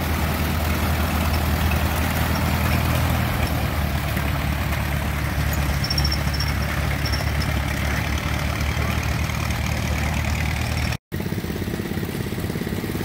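Ford Model T tractor's four-cylinder engine running steadily at low speed as the tractor drives slowly along, with a brief gap in the sound near the end.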